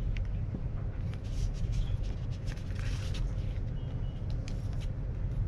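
Paper rustling as printed setup guides and a cardboard folder are handled and shuffled, in short crackly bursts, over a steady low rumble.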